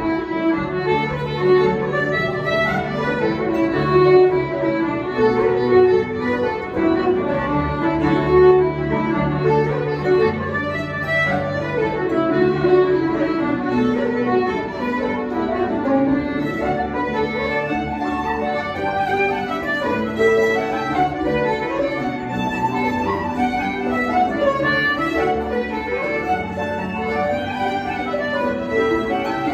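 Live traditional tune played by a small ensemble: fiddles carry the melody over concertina, harp and digital piano accompaniment, at a steady dance tempo.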